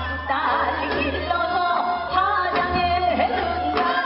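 Women singing Seodo sori, the folk song of Korea's northwestern provinces, with a wavering, trembling vibrato, accompanied by traditional Korean instruments.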